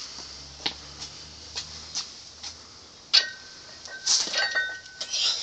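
Iron barbell plates clank sharply about three seconds in as the bar is pulled up off its blocks, leaving a thin ringing tone. This is followed by a run of strained, noisy breaths as the lifter cleans the 80 kg bar to his chest.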